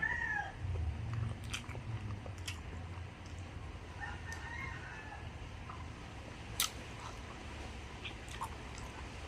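Close-up eating sounds: chewing and biting, with a few sharp clicks, the loudest just past the middle. A rooster's crow trails off at the very start, and a faint fowl call comes about four seconds in.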